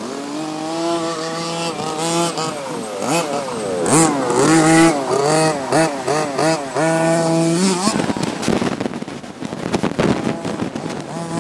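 OBR G340 two-stroke gas engine of a 1/5-scale Losi MTXL RC monster truck, revving up and down over and over as it is driven hard, its pitch climbing and dropping with the throttle. After about eight seconds the sound turns rougher and less even.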